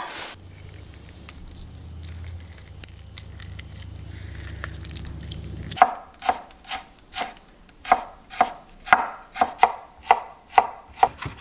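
A low steady hum for the first half that cuts off suddenly, then a knife chopping vegetables, sharp strikes about two a second, quickening near the end.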